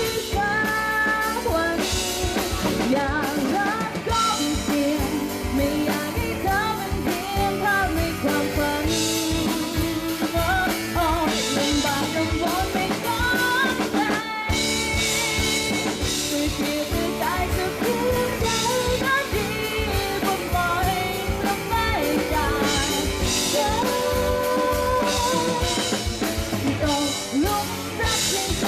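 Pop-rock song played by a band with drum kit and guitar, a voice singing the melody over it.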